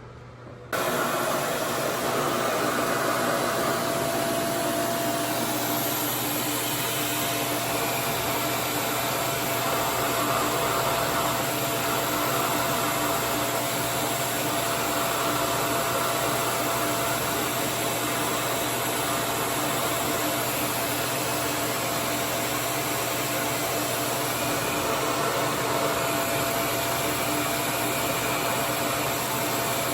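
RevAir reverse-air hair dryer switching on under a second in and running steadily: an even rush of suction airflow with a faint steady whine from its motor.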